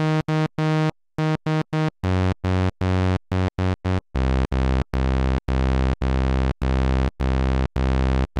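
Two Behringer 2600 Blue Marvin analog synthesizers playing a raw sawtooth wave from VCO3, driven from one split keyboard. The notes are short and detached, each cut off sharply. They step down in pitch about two seconds in, then again about four seconds in, where they turn longer and deep.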